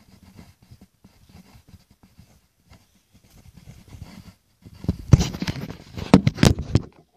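Close rubbing and rustling against a phone's microphone, faint at first. About two-thirds of the way in it turns loud, with scrapes and clicks for roughly two seconds, then stops just before the end.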